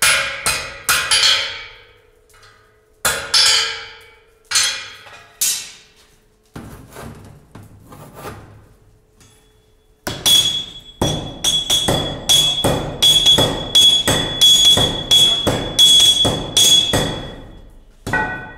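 Hand hammer striking red-hot iron on a steel anvil. A few spaced, ringing blows come first. About ten seconds in, a steady run of about two blows a second begins, each with a high metallic ring.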